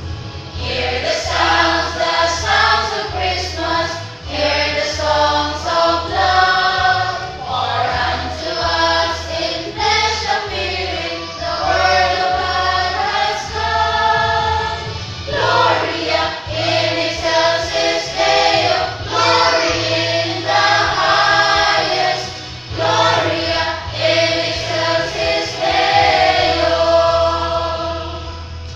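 A choir singing a slow piece in held, sustained notes, with a steady low accompaniment underneath.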